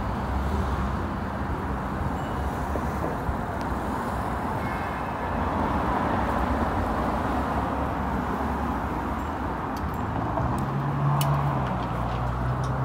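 City street traffic: a steady wash of passing cars, with a vehicle engine's low hum swelling near the end.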